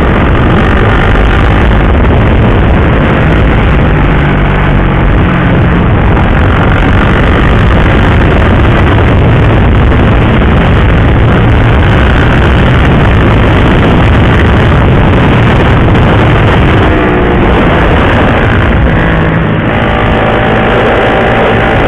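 Riding on a KTM RC 390 sport motorcycle: loud, steady wind rush over the helmet-mounted microphone, with the single-cylinder engine running underneath; its pitch rises and falls a few times near the end as the throttle changes.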